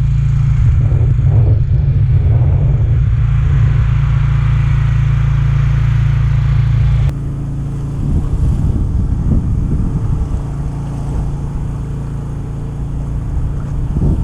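An engine on an electrofishing boat runs steadily with a deep, low hum. About seven seconds in, the sound drops abruptly to a quieter, different engine note.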